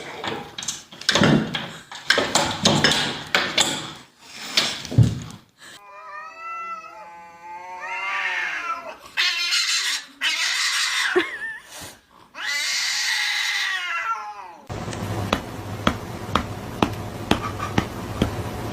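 Domestic cats meowing and yowling, with long pitched cries that bend up and down and harsher, noisier cries. Near the end the sound changes to a steady low hum with sharp ticks about twice a second.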